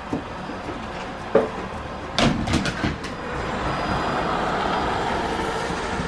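ILIFE A8 robot vacuum cleaner running over a wooden floor: a steady whirr of its motor and brushes. A knock comes about a second and a half in, and a few more knocks and clatters follow between two and three seconds in. After that the whirr grows louder, as if much closer.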